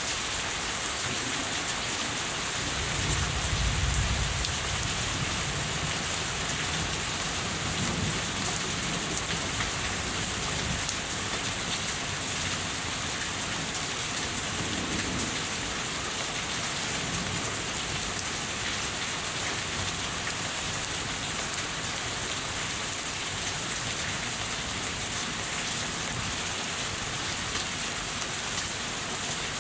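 Steady heavy rain falling and running off a house, with a low rumble of thunder about three seconds in, the loudest moment, and fainter rumbles later on.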